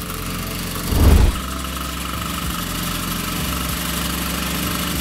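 Large electric air compressor starting up at the press of its start button: a loud low thump about a second in as the motor kicks in, then a steady running hum and whine.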